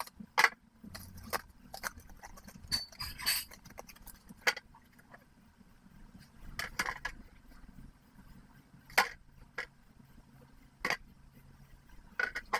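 Glass perfume bottles being set down into a clear acrylic tray: a string of separate sharp clinks and knocks, one every second or two.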